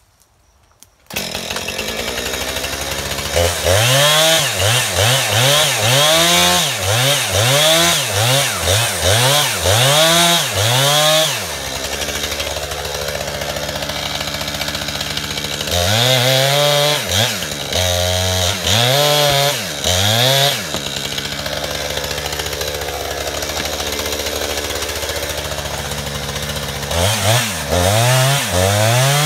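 Two-stroke chainsaw that comes on about a second in and runs at a steady idle, broken by three spells of quick throttle blips, its pitch rising and falling about once a second.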